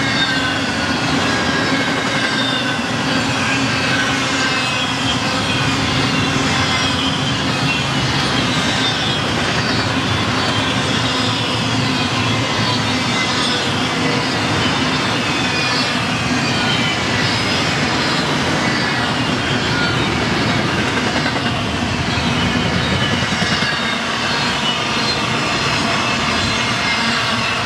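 BNSF double-stack intermodal freight cars rolling past steadily: a continuous rumble and rattle of steel wheels on rail, with high wheel squeal that glides down in pitch over and over.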